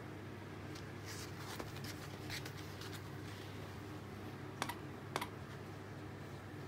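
Light scuffing and tapping of an otter's paws and a plush toy against a woven tatami mat as the otter pushes the toy along, with two sharper clicks about half a second apart past the middle, over a steady low room hum.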